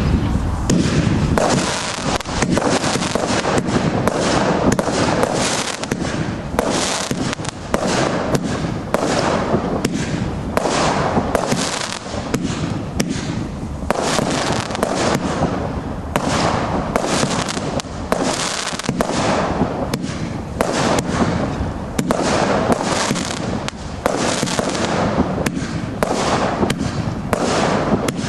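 Continuous fireworks display: a dense run of bangs and crackling with the rushing hiss of launches, with no break.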